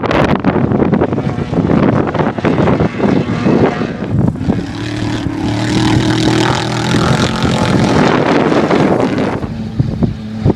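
Off-road race vehicle engine running loud at close range, with a dense crackle over a steady engine note in the middle that eases off near the end.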